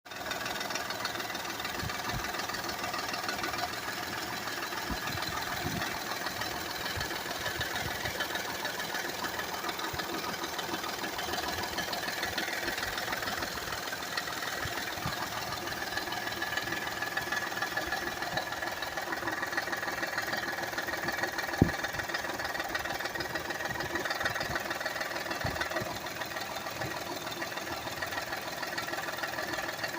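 2008 Honda Accord EX's 3.5-litre V6 running steadily, with an irregular light rattling and knocking over the engine sound and one sharp tap about two-thirds of the way through.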